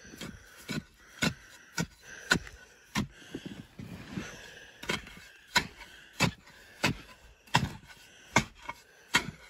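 A series of short, sharp knocks or crunches, roughly one every two-thirds of a second, with a pause about four seconds in.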